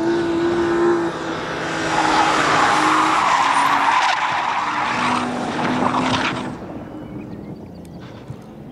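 Rally car at speed: the engine note, then from about a second and a half in a loud, drawn-out tyre skid noise for several seconds as the car slides, fading away near the end as the car moves off.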